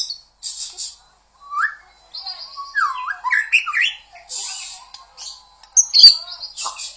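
White-rumped shama (murai batu) singing a varied song of quick whistled notes that slide up and down, mixed with harsh rasping notes, with a brief pause about a second in. A sharp click sounds about six seconds in.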